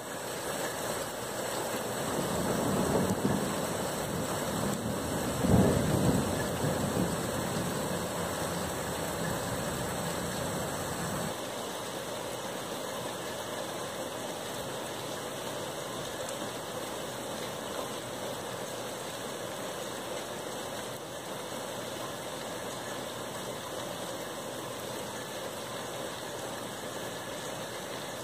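Thunder rolling, a low rumble that swells twice and is loudest about six seconds in, then dies away after about eleven seconds, leaving a steady background hiss.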